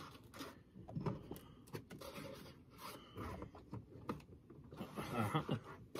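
Hands rubbing and scraping against a wooden case and its foam lining, with scattered light knocks and clicks as the gear inside is handled.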